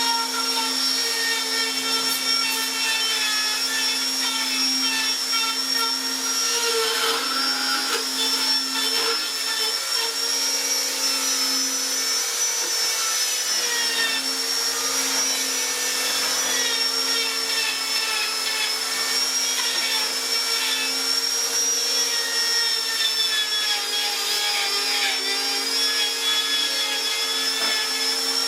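An electric power tool's motor running steadily, a constant whine that wavers slightly in pitch now and then as it works.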